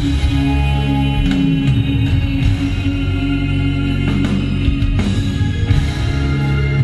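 Live band playing an instrumental passage of the song, with guitar and held bass notes and no lead vocal.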